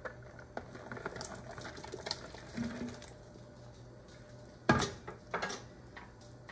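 Cut potatoes, green beans and squash tumbling from a glass bowl into a stainless-steel stockpot of hot broth, with many small splashes and clatters. About two-thirds of the way through comes one sharp knock, then a lighter one.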